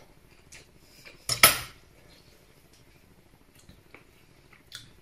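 A metal fork clinking and scraping against a plate, with one loud ringing clatter about a second and a half in, then a few light taps.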